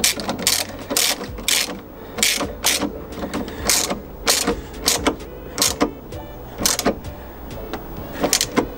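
Hand socket ratchet on an extension clicking through repeated short strokes, roughly two a second, as a car battery's terminal clamp bolt is tightened. There is a pause of about a second before two last strokes near the end.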